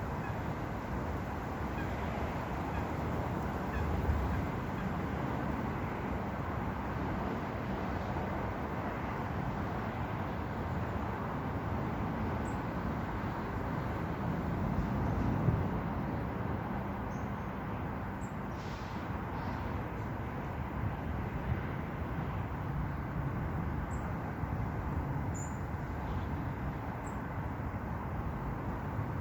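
Steady rushing outdoor background noise, with a few faint, short high bird chirps in the second half.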